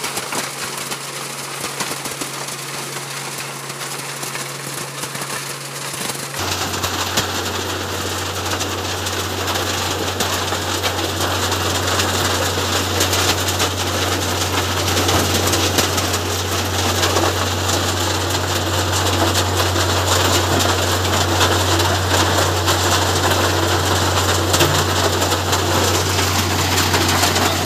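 Road milling machine running steadily: a constant engine hum under a broad, noisy rumble. About six seconds in the sound changes abruptly to a louder, lower hum with more noise.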